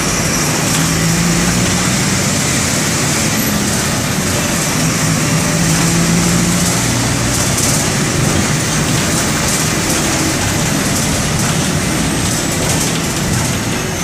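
Mercedes-Benz OM-924 LA 218 hp inline four-cylinder turbodiesel of an OF-1722M city bus running on the move. The engine note holds and then shifts in pitch several times.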